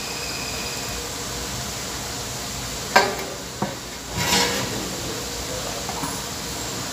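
Chicken pieces simmering and sizzling in their juices in an aluminium wok, a steady hiss. A sharp tap comes about three seconds in, and a brief louder noise about a second later.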